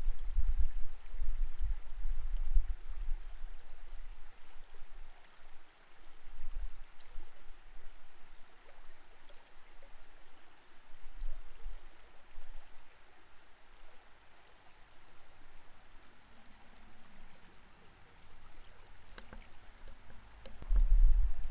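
Creek water flowing, heard underwater: an even hiss of current with low rumbling bumps, heavier during the first few seconds and again at the very end.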